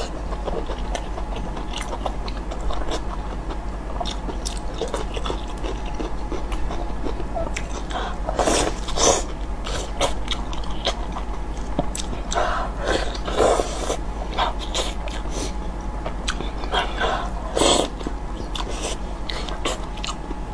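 Close-up chewing and lip-smacking of soft, sauce-coated lamb offal (brain and tripe), with wet squelches as gloved hands tear the pieces apart. Several louder wet clusters stand out among the steady run of small smacks.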